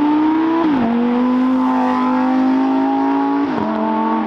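Sports car engine accelerating hard, its note climbing through the gears with two quick upshifts, one just under a second in and one near the end.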